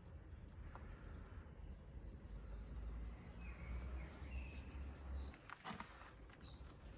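Faint outdoor ambience: a steady low rumble with a few faint bird chirps, and a couple of light clicks near the end.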